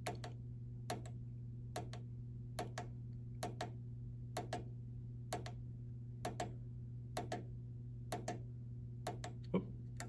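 Small tactile push-button on a furnace control board pressed repeatedly, about once a second, each press a quick double click of press and release, over a steady low hum.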